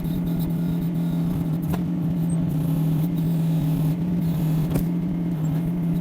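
XH20D mini excavator's engine running steadily with a low, even hum while the machine holds a heavy log, with a couple of faint knocks.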